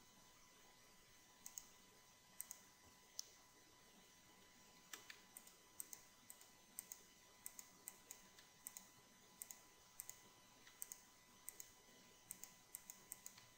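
Faint clicks of a computer mouse and keyboard, often in quick pairs about once a second, against near silence, as edge loops are selected with modifier-key clicks.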